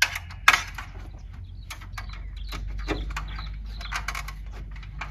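Sharp knocks followed by a run of clicks and rattles as a rooftop tent's metal rods and fittings are handled. The loudest knock comes about half a second in.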